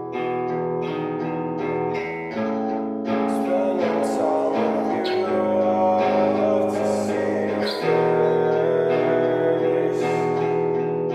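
Music: a guitar-led rock track with picked guitar notes over held low notes, growing fuller and louder about three seconds in.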